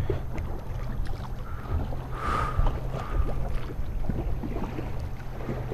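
Small fishing boat sitting on open water: water sloshing against the hull over a steady low hum, with small clicks of tackle being handled and a brief higher tone about two seconds in.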